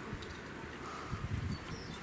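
Quiet outdoor ambience: a steady soft hiss with a few soft low thumps, and several faint, short, high bird chirps in the second half.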